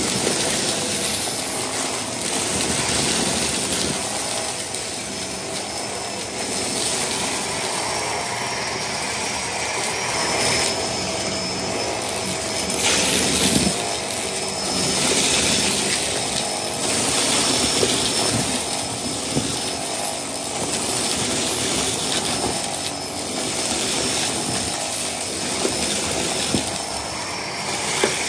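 Bagless upright vacuum cleaner running steadily while sucking up sequin confetti from a shag rug into its clear dust canister. It has a faint steady whine, and the level swells and dips every couple of seconds as it is pushed back and forth, with a few brief clicks.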